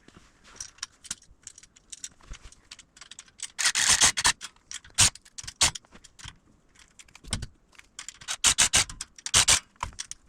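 Small metal parts clinking and rattling as a J-hook bolt is fitted to a wire shelving rack: bunches of quick sharp clicks, busiest about four seconds in and again from about eight to nine and a half seconds.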